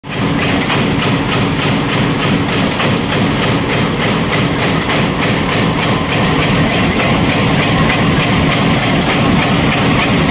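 A 5 mm fin press machine running, stamping with a rapid, even rhythm of several strokes a second over a steady machine hum.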